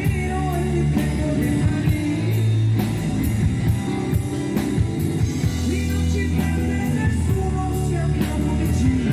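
Live pop-rock band playing: electric bass, drum kit with a steady cymbal beat, electric guitar and keyboards, with a lead vocal over them.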